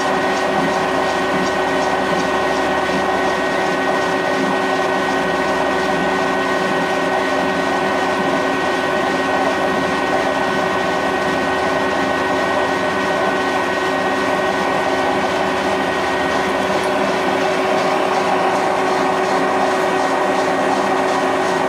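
UT16PM lathe running steadily with a tube blank spinning in the chuck against a bearing roller that trues it. The drive gives a steady whine of several tones, with a faint, rapid, regular ticking over it.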